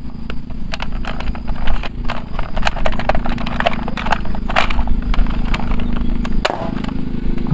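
Toy gun being fired: irregular clicks and taps over a steady low hum, which cuts off with a sharp click about six and a half seconds in.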